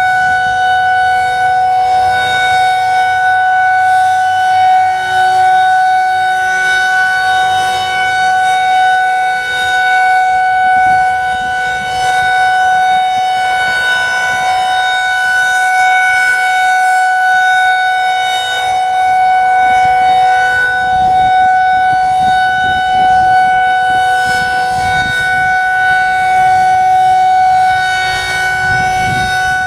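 Federal Signal 2001-SRNB rotating outdoor warning siren sounding its Alert signal: one steady, unbroken tone with a few overtones that swells and dips slightly in loudness.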